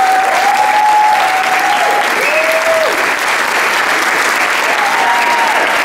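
Theatre audience applauding steadily. A few long held calls from voices in the crowd rise over the clapping, near the start, about two seconds in, and near the end.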